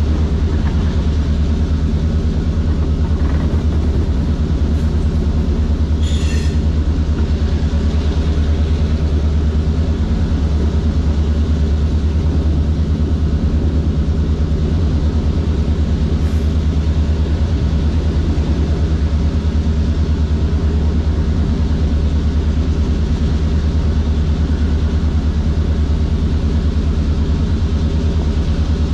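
EMD 567 diesel prime mover of a CF7 locomotive running steadily under load as it pulls the train up a grade, heard close up from the locomotive's sand filler hatch. A brief high-pitched squeak cuts in about six seconds in.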